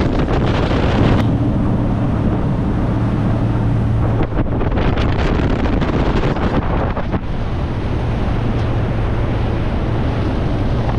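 Motorboat running at speed: a steady engine drone under wind buffeting the microphone and the rush of water off the hull.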